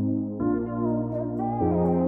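Slow ambient instrumental background music: sustained keyboard-like chords that change about half a second in and again near the end.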